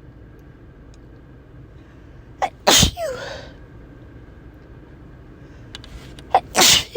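A person sneezing twice, about four seconds apart, each loud sneeze preceded by a quick, sharp intake of breath, over a steady low hum.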